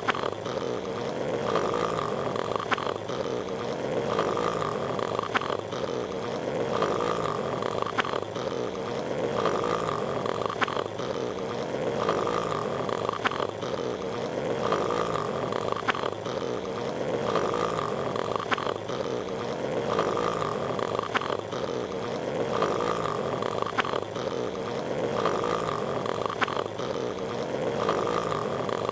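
Patrick Star's cartoon snoring, looped: a short snore repeating evenly about every second and a half over a steady hiss.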